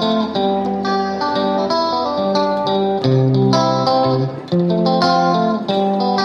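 Background music: a plucked guitar playing a melody over chords.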